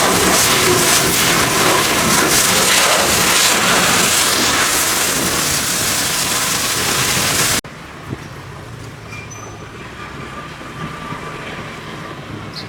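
Pressure washer spraying water onto a car: a loud, steady hiss that cuts off abruptly about seven and a half seconds in, leaving a much quieter low hum with a few faint clicks.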